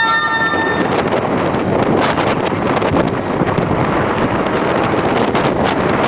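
Wind buffeting the microphone during the ride, a loud, steady rushing noise. A ringing metallic tone that has just begun fades out within about the first second.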